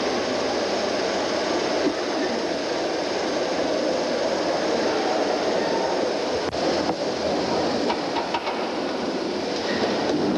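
1913 Allis-Chalmers vertical triple-expansion steam pumping engine running, a steady, even noise of working machinery.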